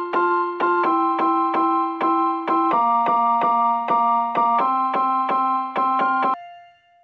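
Background keyboard music: a chord struck again and again, about three times a second, changing chord every couple of seconds. It stops about six seconds in, leaving one note ringing faintly.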